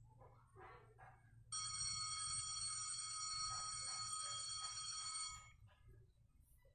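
Automatic school bell controller playing the start of its flag-ceremony announcement file: a steady electronic chime tone that comes in about a second and a half in, holds for about four seconds, then stops.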